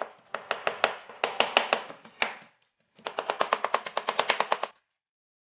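Kitchen knife rapidly chopping raw chicken breast on a cutting board to mince it. There are two runs of quick knocks, and the second, after a short pause, is faster at about ten strokes a second.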